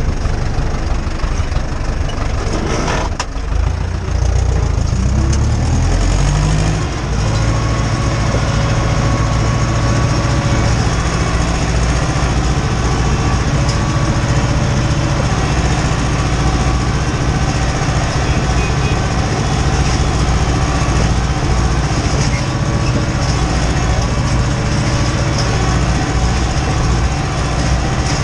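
Ursus tractor's diesel engine heard from inside the cab, with a single clunk about three seconds in. The engine then revs up and runs steadily under load, pulling a cultivator.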